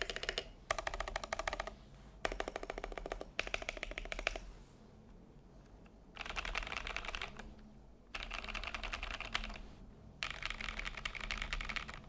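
Custom YMDK Melody 96 acrylic mechanical keyboard with lubed AEBoards Naevy switches and PBT keycaps being typed on quickly. There are about five bursts of rapid keystrokes, each a second or two long, with short pauses between them.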